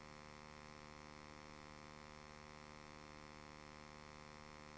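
Near silence with a steady electrical mains hum and faint hiss.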